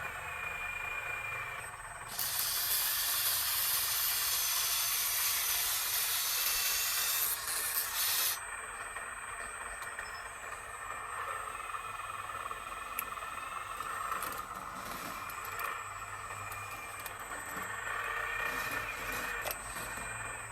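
A loud, steady hiss that starts about two seconds in and cuts off sharply some six seconds later, over a quieter steady background hum.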